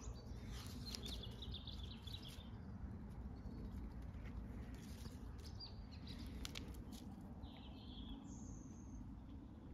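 Quiet outdoor ambience: a steady low rumble of wind with a few faint bird chirps, about a second in and again near eight seconds.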